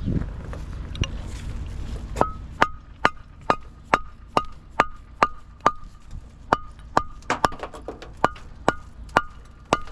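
Steady hammer blows, about two a second, starting about two seconds in. Each strike has a short metallic ring. Before them there is a low rumble.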